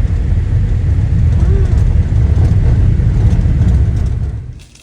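Steady low rumble of a car on the road, road and wind noise, that cuts off suddenly near the end.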